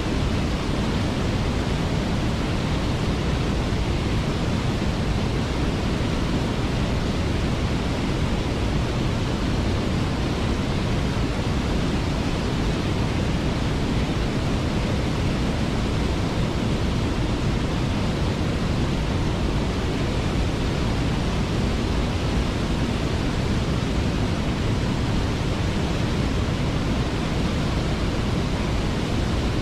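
Waterfall pouring steadily: an even, unbroken noise of falling water.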